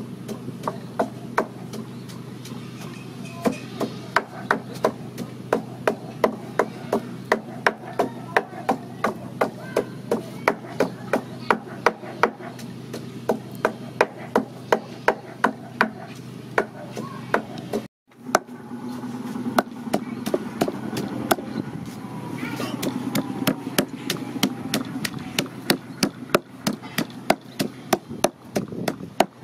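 Wooden pestle pounding in a wooden mortar, a steady rhythm of dull knocks about two a second as it crushes a wet paste of lemongrass and chillies. The pounding breaks off briefly past the middle, then resumes.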